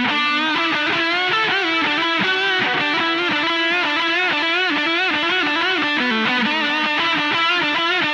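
Gibson Les Paul-style electric guitar played through a Boss DS-2 Turbo Distortion pedal: a distorted single-note lead line with string bends and vibrato, notes following one another without a break.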